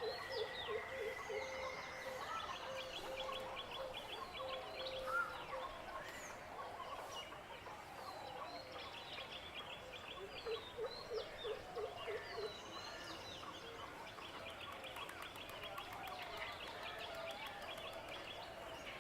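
Birds calling over one another: high chirps and fast, rattling trills, with runs of low, quick pulsed calls, somewhat like gobbling, near the start and again about halfway through.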